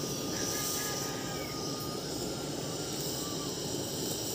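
Steady rushing of a gas burner flame as a plucked chicken is singed over it, with a constant high hiss above it and a few faint thin whistling tones.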